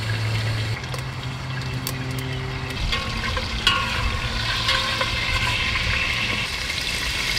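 Whole spices, cumin and mustard seeds, sizzling in hot oil in a pot. The sizzle grows stronger about halfway through, with a few sharp ticks and a steady low hum underneath.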